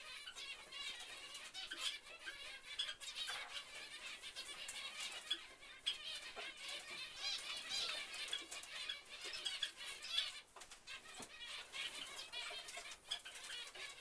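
A shed full of caged finches calling together: a dense, continuous chatter of short, high chirps, with occasional brief flutters and clicks from birds moving in the cages.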